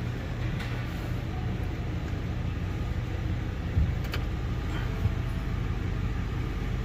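1997 Ford F-250's 7.5-liter V8 idling steadily, heard from inside the cab. There is a short click early on and a sharp click about four seconds in as the headlight switch is worked.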